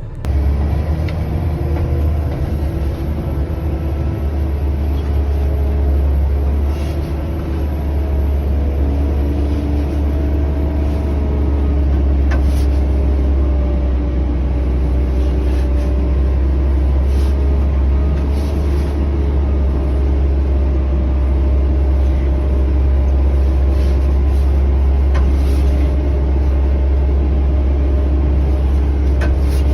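Snow-plowing vehicle's engine running steadily with a strong low drone, its pitch drifting slightly as it drives.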